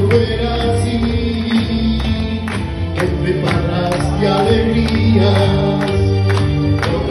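A man singing a Spanish ballad live into a microphone over backing music with a steady beat, played through a PA loudspeaker.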